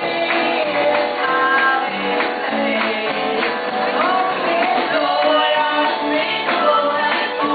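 Live gospel song: women singing into microphones over amplified accompaniment with a steady beat.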